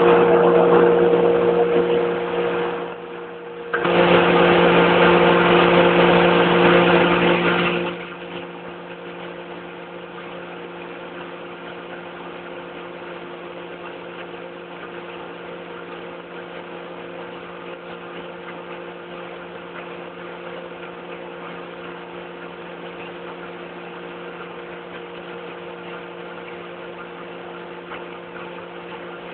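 Drilling rig machinery running with a steady hum during a casing run. It is broken by two loud rushing bursts in the first eight seconds: one at the start, and a second about four seconds long.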